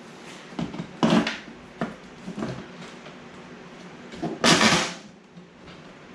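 Several short scraping strokes of a blade carving plastic, trimming a hole in a cooler wall wider, the longest and loudest about four and a half seconds in.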